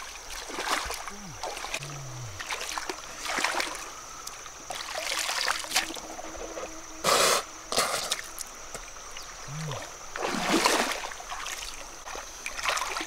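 Bare feet wading through shallow river water, each step splashing and sloshing at an uneven pace, about eight splashes in all.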